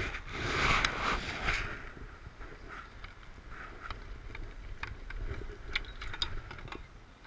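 Handling noise: a gloved hand rubs and brushes against the camera's microphone for about a second and a half. Scattered light clicks and knocks follow as the bicycle-mounted camera is moved.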